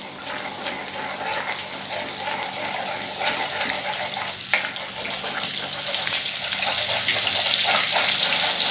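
Butter melting and sizzling in hot oil in a metal pot, a steady hiss that grows slowly louder, with a few light taps of a steel ladle against the pot as it is stirred.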